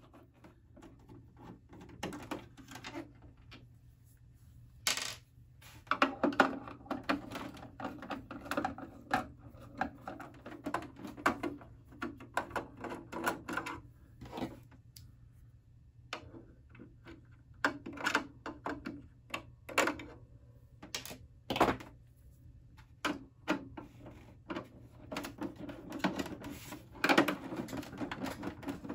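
Screwdriver backing bolts and small screws out of an iMac G3's plastic bottom case: irregular clicking, scraping and rattling of metal screws against plastic, with a few sharper clicks.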